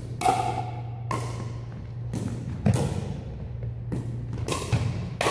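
Pickleball rally: hard paddles popping a plastic pickleball back and forth, with the ball bouncing on the hardwood floor. About seven sharp hits come at uneven intervals, each echoing in the big gym.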